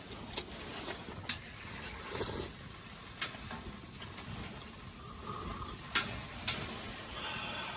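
Wood fire crackling: sharp, irregular pops over a low steady hiss, the loudest two close together about six seconds in.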